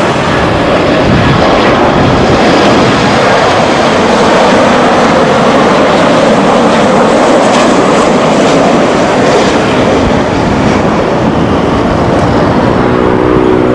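Boeing 737-800 jet airliner on landing approach and flare, its two CFM56 turbofan engines heard as a loud, steady jet noise close by.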